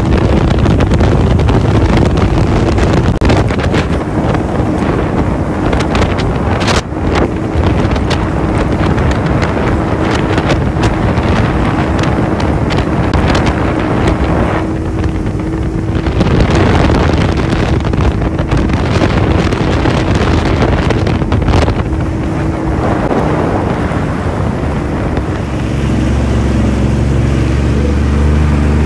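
Jet ski running near full speed: a loud steady engine drone with a constant hum, and wind buffeting the microphone throughout. The hum fades after about twenty-two seconds, and a lower, steadier engine note takes over near the end.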